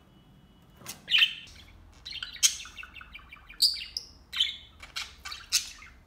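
Budgerigar chirping and warbling: a string of short, high calls starting about a second in.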